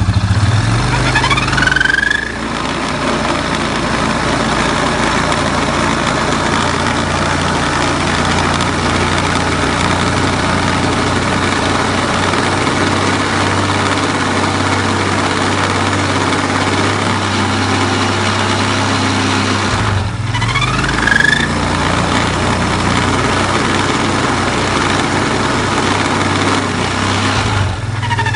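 CFMoto CF625 (X6) ATV engine and CVT variator running, revved up briefly near the start and again about 20 seconds in, otherwise running steadily. As the variator begins to spin, the belt scrapes against the casting, and after that comes a foreign crackling from the variator, whose rollers have just been replaced.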